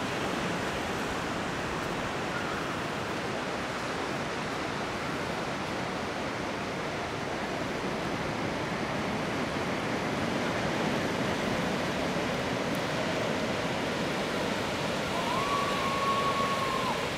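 Steady rushing noise of ocean surf breaking along a sandy beach. Near the end a thin high tone is held for about two seconds.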